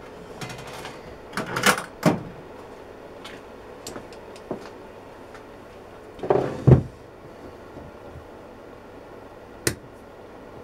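Pliers and a cast-iron bench vise being handled on a workbench while a screw is worked out: scattered metal clicks and knocks, the loudest a heavy thump about six and a half seconds in.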